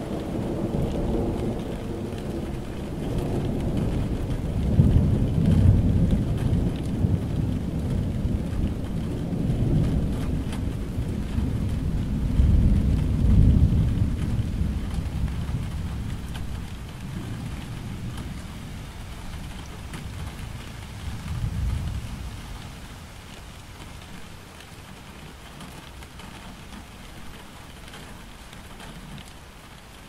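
Steady rain falling, with a long low roll of thunder that swells twice and dies away about two-thirds of the way in, leaving only the rain.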